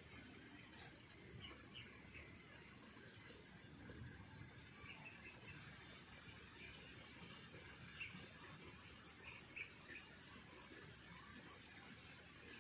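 Faint outdoor ambience: a steady high-pitched insect drone, with scattered faint short chirps and a low rumble underneath.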